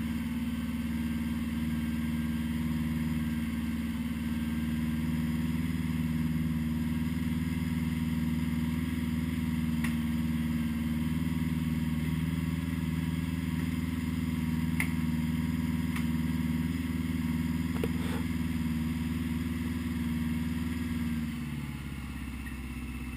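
1980 Honda GL1100 Gold Wing's flat-four engine idling steadily as it warms up after a cold start, running evenly on freshly synchronised carburettors. Near the end the idle drops to a lower, quieter speed.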